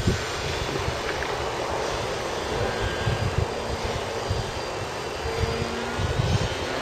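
Foam RC model airplane flying overhead, its motor and propeller giving a steady, distant buzz over a hiss of outdoor noise.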